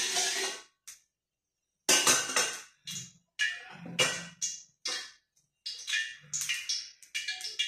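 Stainless-steel bowls and utensils clattering and clinking, a string of sharp ringing knocks spread over several seconds, after a brief steady hiss at the start from oil in a wok being stirred.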